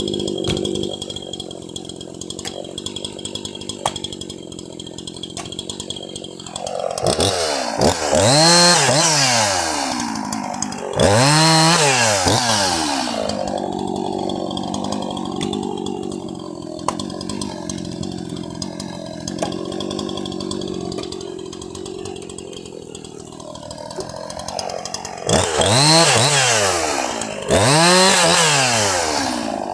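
Jonsered 2153 50 cc two-stroke chainsaw idling, then revved up to high speed and back down four times: two bursts about seven to thirteen seconds in and two more near the end.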